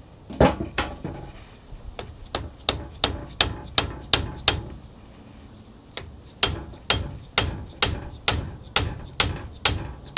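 Repeated hammer blows on an adjustable wrench fitted to the seized, flame-heated nut of an old lathe's change gear, sharp metallic strikes at about three a second, a pause of about a second and a half, then about two a second, to shock the nut loose.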